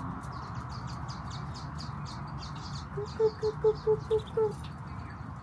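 Small wild birds chirping continually, with a quick run of about seven short, low calls a little past halfway.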